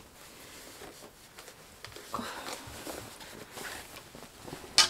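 Cotton dust bag rustling and being handled as a small canvas trunk is drawn out of it, with a single sharp knock near the end.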